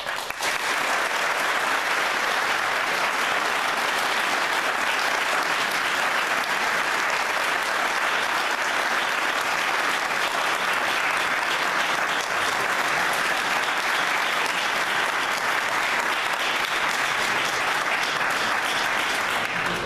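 Audience applauding steadily, a dense even clatter of many hands that starts at once and holds without letting up.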